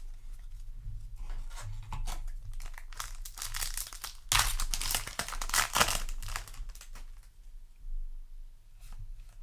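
A Yu-Gi-Oh! booster pack's plastic wrapper torn open and crinkled, with cards handled; the tearing and crinkling is thickest and loudest from about four to six seconds in.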